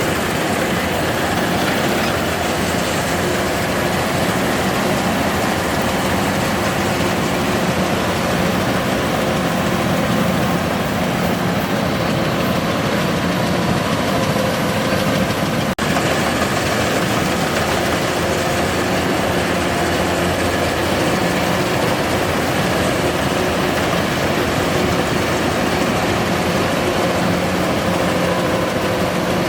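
Kubota DC-105X rice combine harvester's diesel engine running steadily, a loud, even mechanical drone; the sound cuts out for an instant about halfway through.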